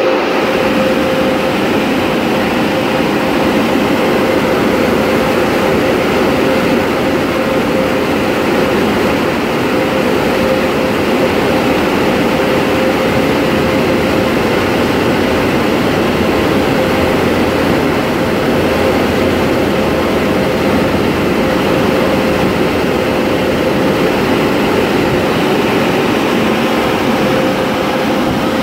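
Automatic car wash air dryer blowers running, a loud steady rush of air with a constant hum.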